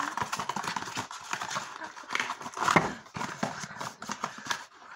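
Cardboard box being handled and opened by hand: irregular clicks, taps and rustling of the cardboard and its paper inner wrapper, with a louder knock about halfway through.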